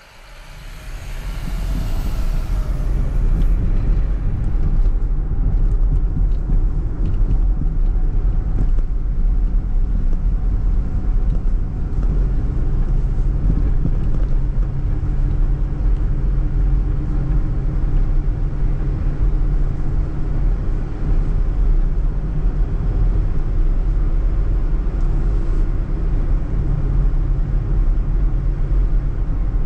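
Engine and road noise of a moving camper van heard inside its cab: a steady low rumble that fades in over the first two or three seconds, then holds level.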